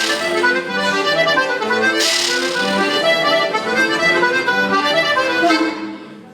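Background instrumental music, fading out near the end.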